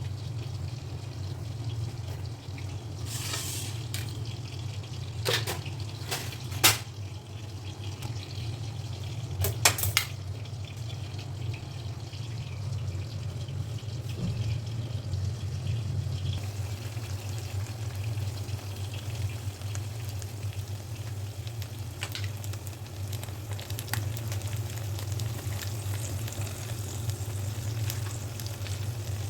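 Brinjal frying in a pan, with a faint steady sizzle over a steady low hum. Several sharp knocks of a utensil in the first ten seconds.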